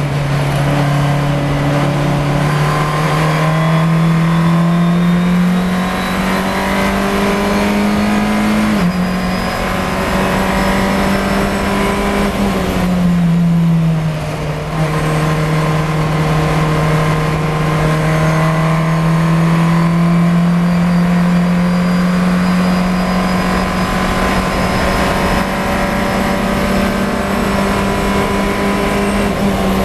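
Fun Cup race car's engine, heard from inside the cockpit, pulling hard with the note rising. It drops sharply about thirteen seconds in as the driver shifts up, then climbs slowly again.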